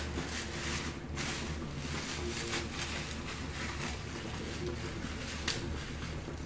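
Tomato and chicken pieces cooking in a pan on the stove: a steady hiss with faint crackling over a low hum, and one sharper click about five and a half seconds in.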